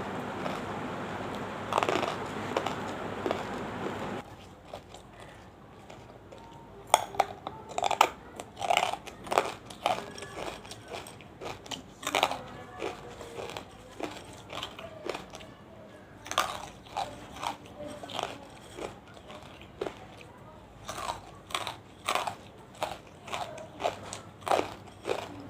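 Close-miked biting and chewing of banslochan (tabasheer, the chalky bamboo silica): sharp, crisp crunches that repeat about once or twice a second. A steadier hiss-like noise fills the first four seconds and stops before the crunching begins.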